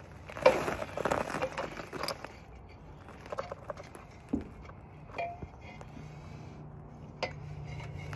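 Metal clinks, rattles and knocks as a small engine is worked loose from its mount on a mini bike frame, dense in the first two seconds and then scattered single knocks.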